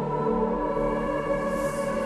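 Slow ambient meditation music: sustained, layered tones held steadily, with a soft airy wash coming in near the end.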